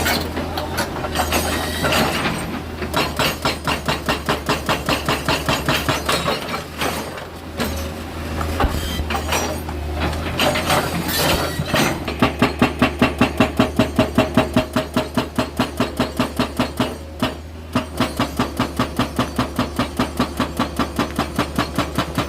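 Rapid mechanical hammering, about five blows a second, over a low steady engine drone. The blows break off briefly about a third of the way in and again about three-quarters in, and are louder in the second half.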